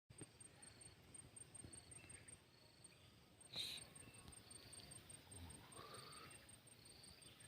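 Faint chirping of insects in vegetation: a high, thin chirp repeating about four times a second, with a slower, lower chirp now and then. There is one soft knock about three and a half seconds in.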